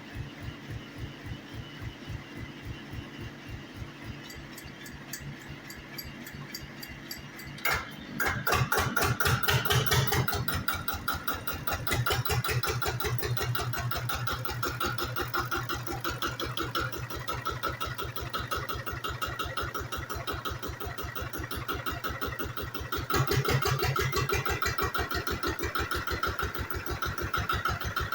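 Kaelble F125E diesel tractor engine being turned over from another tractor's PTO with a slow, even thumping. It catches with a sharp bang about eight seconds in and runs on at a louder, faster beat, picking up speed again around twelve seconds and near the end.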